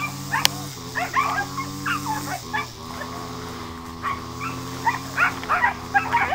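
Dogs fighting: a steady low growl runs under many short, sharp yips and barks.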